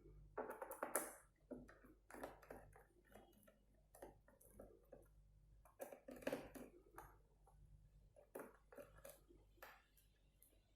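Faint, irregular clicks and scrapes of a screwdriver working the screws out of an Asus X453S laptop's plastic bottom case.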